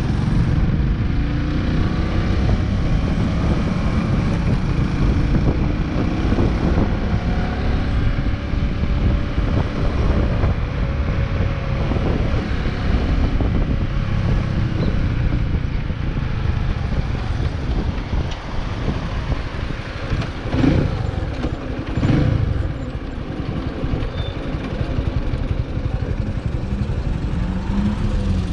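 Big Boy SuperLight 200cc motorcycle engine running at low road speed under heavy low wind rumble on the microphone. The engine note rises and falls as the bike speeds up and slows, with two brief louder surges about three quarters of the way through.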